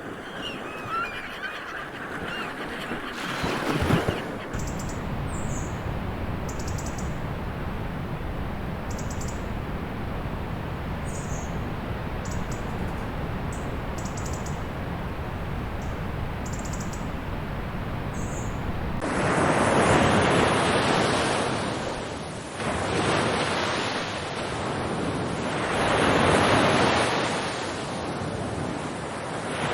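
Ocean surf soundtrack: goose-like honking calls over the water in the first few seconds, then a steady low rumble of surf with short high chirps. After an abrupt change near the end, waves surge in and wash out three times, about three seconds apart.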